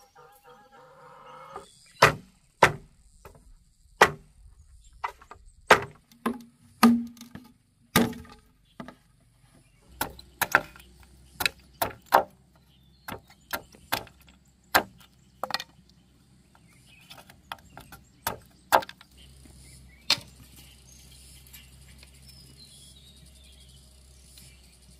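Machete chopping and splitting green bamboo: a run of sharp, irregular whacks, about one or two a second, stopping some three-quarters of the way through. After them a faint steady chirring of crickets.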